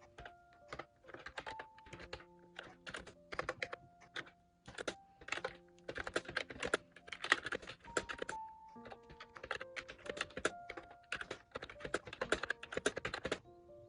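Typing on an Ajazz Bluetooth keyboard: quick, irregular runs of key clicks with short pauses between them, over soft background music.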